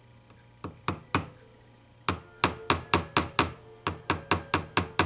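Small watchmaker's hammer tapping the end of a metal pin on a steel beak anvil, peening it cold to spread a rivet head. A few light taps come first, then, from about two seconds in, a steady run of sharp taps at about four a second.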